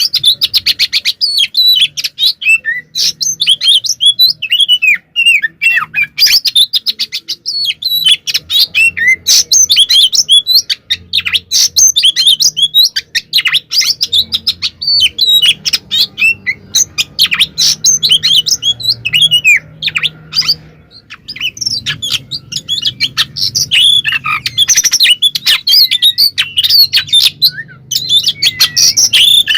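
Oriental magpie-robin singing a loud, rapid, almost unbroken run of whistles, chirps and sweeping notes, its combative territorial song. A short lull comes about two-thirds of the way through.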